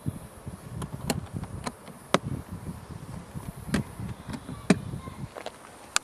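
Honeybees buzzing around the hives, with about nine sharp clicks and knocks at irregular intervals as the yellow plastic hive box is handled.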